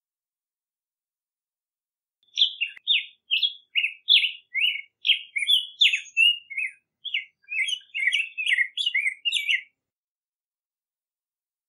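Black-headed grosbeak singing: one long warbled phrase of quick whistled notes jumping up and down in pitch. It starts about two seconds in and runs for about seven seconds.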